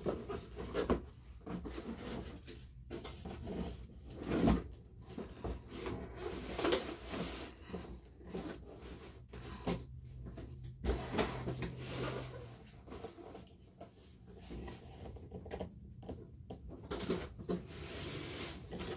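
A monitor's cardboard box and its packing being handled and turned over: irregular rustling and scraping broken by scattered knocks and bumps.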